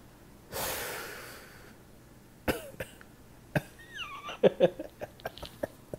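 A man coughs once, a breathy burst about half a second in that trails off over a second, followed by a few sharp clicks and short, quiet bursts of laughter near the end.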